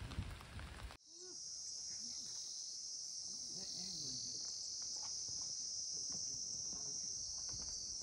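Steady, high-pitched drone of insects, cutting in suddenly about a second in after a brief low rumble.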